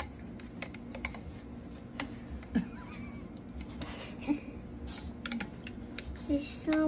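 Spoon scraping and tapping against the inside of a mixing bowl as sticky apple pie filling is scooped out: light, irregular clicks and scrapes.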